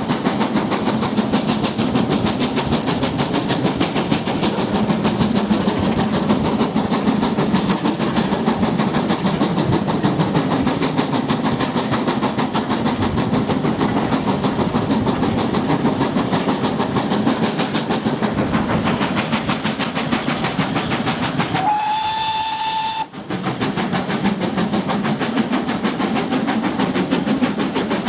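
Steam-hauled train heard from an open carriage window: the steady rumble and rapid clatter of the train on the move. About three-quarters of the way through, the locomotive's steam whistle sounds one blast of about a second.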